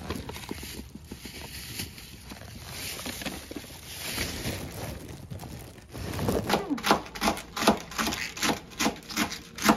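A chef's knife chopping through collard green stems and leaves onto a wooden cutting board in quick even strokes, about three a second, starting about six seconds in. Before that there is soft rustling noise.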